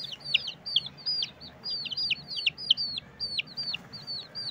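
Several baby chicks, two to seven days old, peeping: short, high, downward-sliding peeps, about four or five a second and often overlapping.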